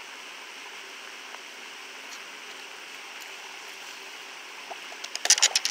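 A hooked largemouth bass splashing and thrashing in a short, loud flurry at the water's edge about five seconds in, as it is reached for to be landed, over a steady background hiss.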